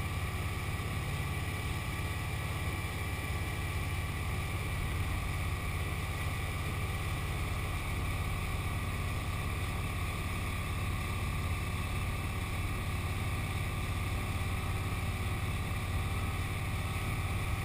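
Speedboat engine running steadily at towing speed, a constant low drone, with the rush of churned water from the boat's wake.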